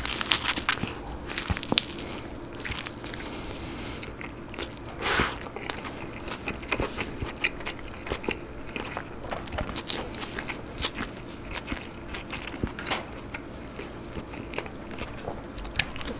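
A person biting into a soft-bun burger filled with sliced roast beef, then chewing it, close to the microphone. The eating sounds are a steady run of soft crunches and small wet clicks.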